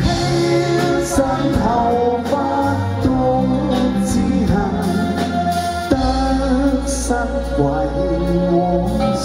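Live band with keyboards, drums and guitar playing an instrumental passage between sung lines of a Cantonese pop song.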